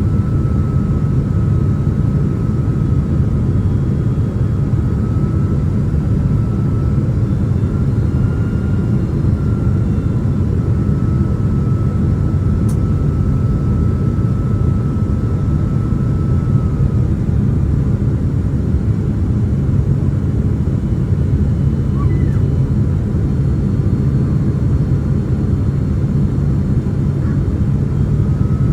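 Steady cabin rumble of a Boeing 767-300ER airliner on approach, engine and airflow noise heard from inside the cabin, with a faint high whine that fades out about two-thirds of the way through and returns near the end.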